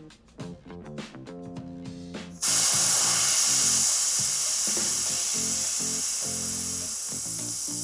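Air hissing out of a bicycle tyre valve as the tyre is let down. The hiss starts abruptly about two and a half seconds in and slowly weakens. Light background music plays underneath.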